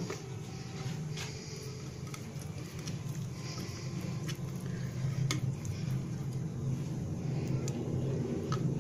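A metal spoon stirring and scraping spice paste in a small ceramic bowl, with a few faint scattered clicks, over a steady low hum.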